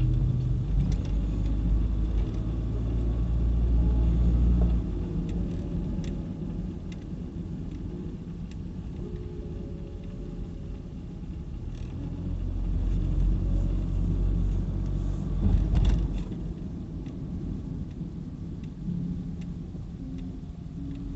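A car's engine and road rumble heard from inside the cabin while driving, louder over the first few seconds and again a little past the middle as the car picks up speed, then easing. There is a brief sharp knock about fifteen seconds in.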